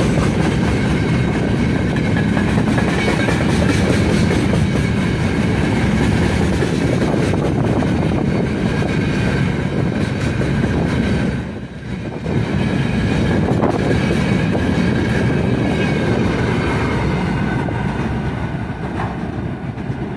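Freight train's open gondola wagons rolling past close by: a steady rumble and clatter of steel wheels on the rails. It dips briefly about halfway through and fades a little near the end as the last wagons go by.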